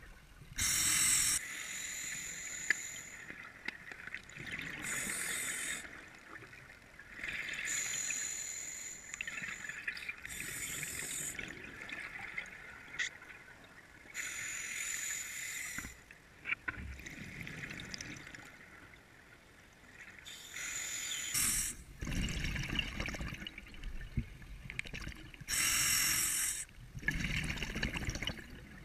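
Scuba diver breathing through a regulator underwater: hissing inhalations and bubbly exhalations in bursts every few seconds, with exhaled bubbles rushing past the camera.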